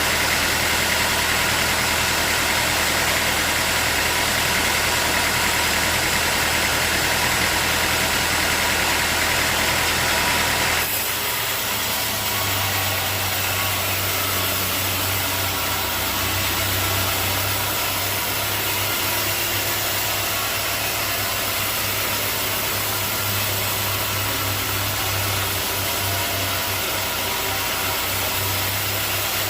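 Sawmill machinery running steadily. About eleven seconds in the sound changes abruptly: the high hiss drops away and a steady low hum takes over.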